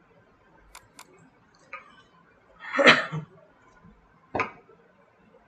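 A few scattered clicks of computer keyboard keys being typed, with a short, louder noise about three seconds in.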